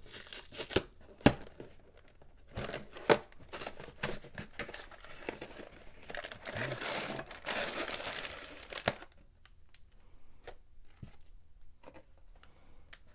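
Cardboard LEGO set box and plastic parts bags being handled and opened. Sharp taps and clicks come first, then several seconds of crinkling and tearing, then scattered light clicks.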